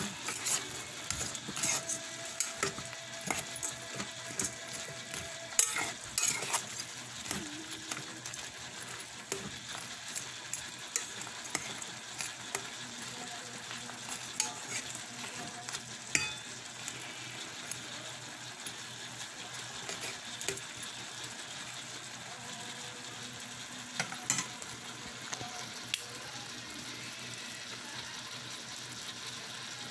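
Shrimp cooking in a rice cooker's inner pot, sizzling steadily, with a utensil stirring and clicking against the pot over the first several seconds and briefly again later on.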